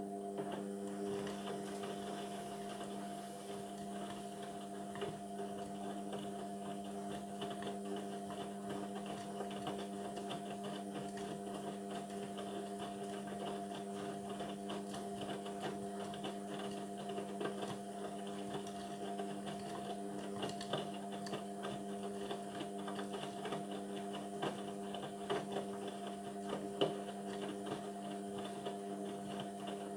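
Indesit washing machine's drain pump humming steadily, a mains-type hum that switched on abruptly just before, with small clicks and rattles over it as water is pumped out.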